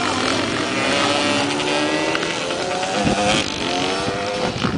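Off-road race motorcycle engines accelerating hard, the pitch climbing, dropping back at each gear change and climbing again.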